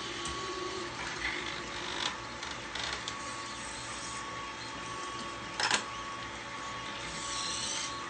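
Motors of small desktop robot arms (PLTW Flowarms) whirring as the jointed arms swing and position a pencil, over a steady high-pitched whine. A few light clicks, and a sharper clack about five and a half seconds in.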